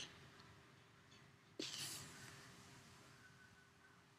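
Near silence, broken about a second and a half in by one soft exhaled breath that fades over about a second.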